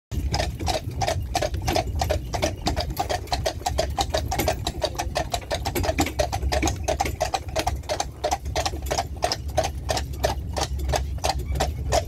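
Hooves of a pair of carriage horses striking a paved road: a quick, even clip-clop of several strikes a second, with a steady low rumble underneath.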